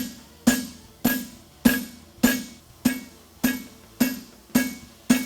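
Steady hammer blows on a steel horseshoe against an anvil, just under two a second, each strike ringing out briefly, as the toe of a front hunter shoe made from 5/8-inch square bar is worked over the anvil horn into an arc.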